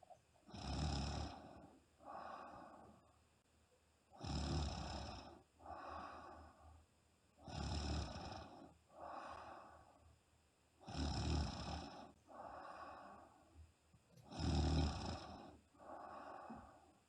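A woman snoring in her sleep, five breaths about every three and a half seconds. Each breath is a louder, deeper snore followed by a softer, higher breath.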